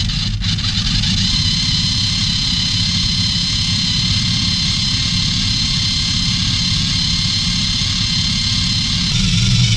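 Scale RC car's motor and drivetrain driving its rear wheels against the roller of a homemade dyno, a steady mechanical run with a low rumble and a high hiss. The rumble gets louder about nine seconds in.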